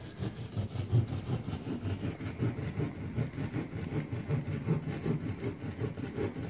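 Utility knife sawing through a ceiling tile around a round template, a rasping scrape repeated in quick back-and-forth strokes, about three a second, cutting the mounting hole.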